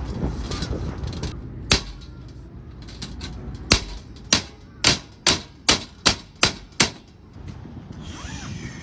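Hammer blows: two single sharp strikes, then a quick run of seven about two and a half a second, each a bright, hard knock.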